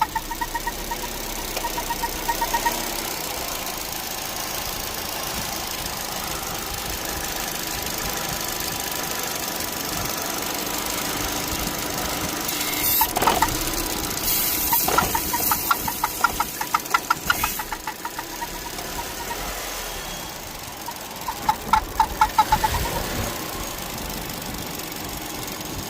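Vauxhall Meriva 1.4 engine running warm, with a rapid rhythmic ticking, about six or seven beats a second, that comes and goes in bursts of a second or two. This is the odd noise that appears only once the engine is warmed up.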